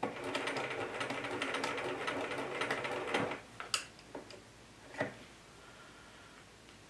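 Bernina 1080 Special sewing machine with a walking foot stitching through fabric: a fast, even ticking clatter of needle and walking-foot feet for about three seconds, then it stops. A sharp click and a single soft knock follow.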